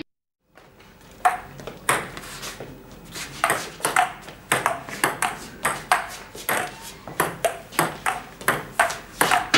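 Table tennis rally: a ball clicking back and forth between rubber paddles and the table, about two sharp hits a second, each with a short ring. The hits begin about a second in, after a brief silence.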